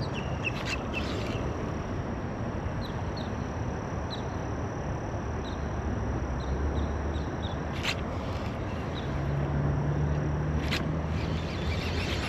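Outdoor pond ambience: scattered short bird chirps over a steady high insect whine, with a low hum that swells in the second half. Two sharp clicks stand out, a few seconds apart.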